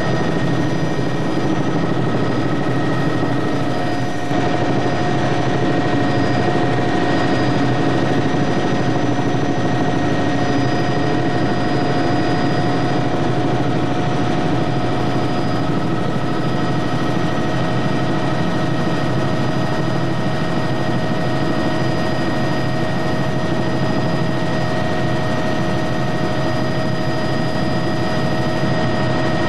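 Helicopter cabin noise: a steady drone from the rotor and engine, with several constant high tones above it, heard from inside the cabin.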